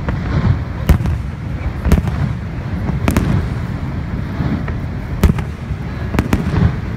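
Aerial firework shells bursting in a display: about six sharp bangs, one every second or so, over a steady low rumble.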